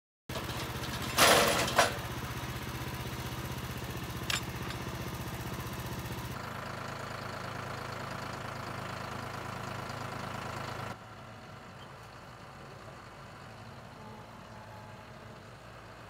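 Diesel engine of a John Deere tractor running steadily while its front loader lifts a log, with two loud clanks about a second in and a lighter knock about four seconds in. The engine gets quieter about six seconds in and again about eleven seconds in.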